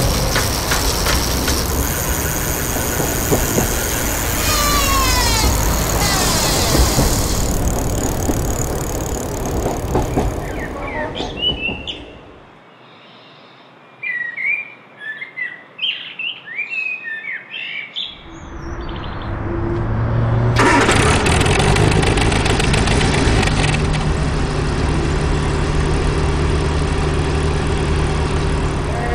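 Street traffic with vehicles passing. Near the middle it drops away for several seconds to birds chirping, then the traffic noise returns.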